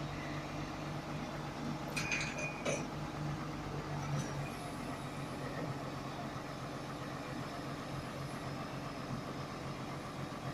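XCMG mobile crane's diesel engine running steadily while it lowers a slung load, with a couple of brief metallic clinks about two seconds in.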